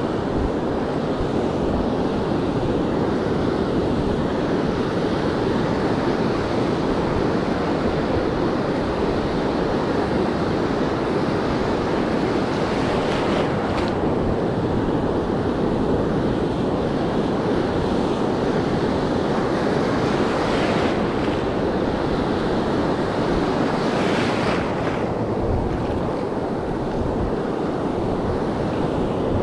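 Steady wash of ocean surf breaking on a sandy beach, with wind blowing on the microphone.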